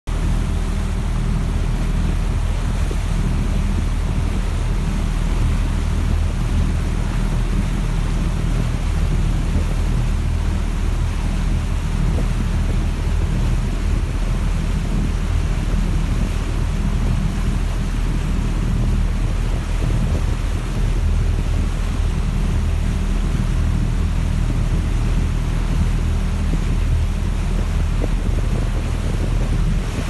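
Boat engine running steadily with a low hum, under the rush of the churning wake behind the stern.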